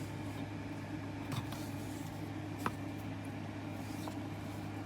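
A steady low hum with a few faint light clicks, the sharpest one a little under three seconds in.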